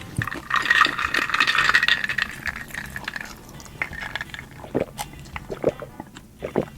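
Liquid sounds of a drink: a hissing, rushing pour or sip for about three seconds, then a few soft clicks.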